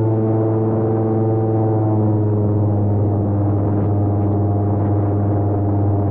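Airboat's engine and open air propeller running at a steady cruising speed: a loud, steady drone with a strong low hum and layered tones above it that drift slightly in pitch.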